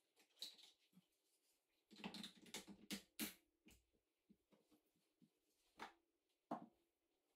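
Near silence with faint, scattered clicks and short scrapes of wall tiles and plastic leveling spacers being handled and pressed into place, busiest about two to three seconds in.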